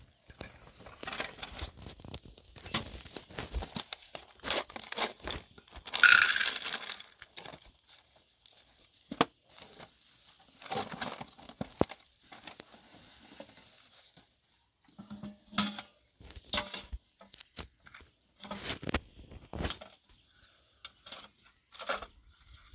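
Plastic bags and cloth bundles rustling and crinkling as they are rummaged through by hand, in irregular short bursts, loudest about six seconds in, with a few light knocks of handled kitchenware.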